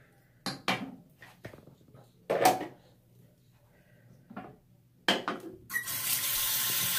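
A handful of hard clinks and knocks as shaving gear is handled and set down on a counter, the loudest about two and a half seconds in. Near the end a tap is turned on and water runs steadily into the sink.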